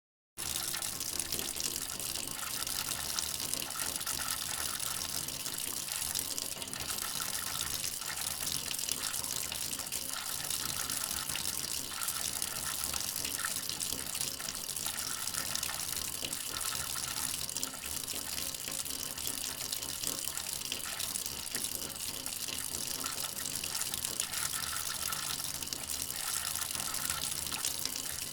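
Water running steadily from a tap, a continuous splashing rush that starts abruptly right at the beginning.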